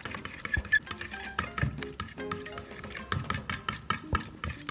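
A metal spoon beating yogurt in a bowl: a quick, uneven run of scrapes and clinks against the bowl, over background music.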